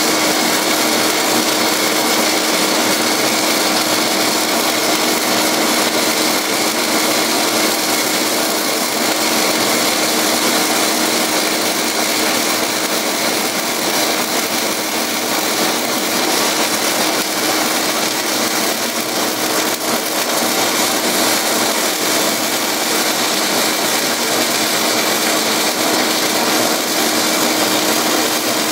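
Henlex HV102 120-volt vacuum turbine running steadily as a welding smoke extractor, drawing air through a 2-inch capture arm: an even rushing noise with a steady hum.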